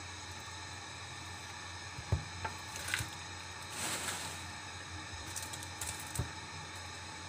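Papery onion skin rustling and crackling as an onion is peeled by hand, with a few light knocks of the onion and hands on a wooden cutting board and a short rustle about four seconds in. A steady low hum and hiss runs underneath.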